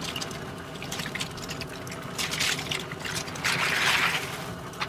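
Live crawfish poured by the basketful into a pot of boiling water, shells clattering and splashing into the aluminium strainer basket in two surges, about two seconds in and again about three and a half seconds in, over a steady rush from the boiling pot.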